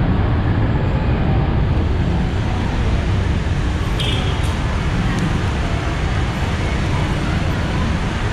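Steady low rumble of street traffic, with a brief faint higher-pitched sound about four seconds in.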